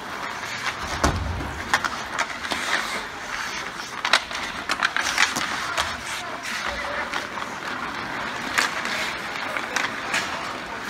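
Ice hockey in play: skate blades scraping and carving the ice, with many sharp clacks of sticks on the puck and on each other, the loudest about four seconds in, and a dull thump about a second in, like a puck or player hitting the boards.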